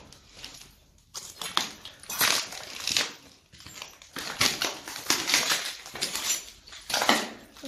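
Footsteps crunching irregularly over grit and debris on concrete stairs and floor.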